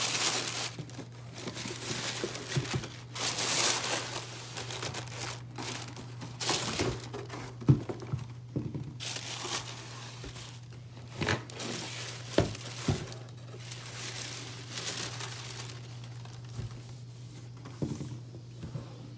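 Tissue paper rustling and crinkling in a cardboard shoebox as it is pulled back and the boots are lifted out. There are a few short knocks, the loudest about eight seconds in, with more around eleven to thirteen seconds.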